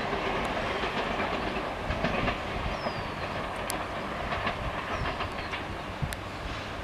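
Kashi Vishwanath Express passenger train running away along the track, its wheels clacking over the rail joints under a steady rumble that slowly fades as it recedes.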